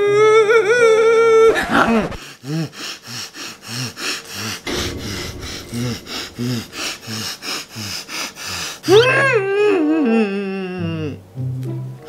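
A man's exaggerated sobbing: a held wail, then wheezing, gasping breaths at two or three a second, then another long wail that rises and falls away about nine seconds in.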